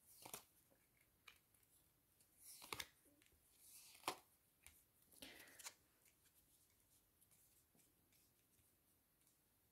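Cards being handled on a table: a few faint, brief papery swishes and slaps as cards are drawn and laid down, the sharpest about four seconds in.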